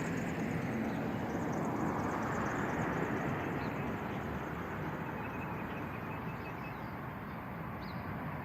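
Rushing noise of a passing vehicle, swelling over the first few seconds and then slowly fading.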